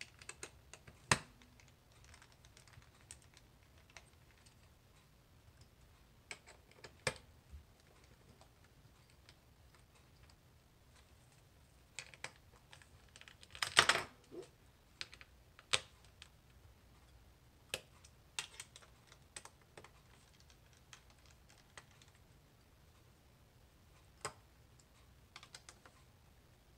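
Scattered small clicks and taps as a small Phillips screwdriver turns the screws and the bottom cover of a Lenovo ThinkPad X1 Carbon laptop is pressed back into place. A brief, louder rustle about halfway through.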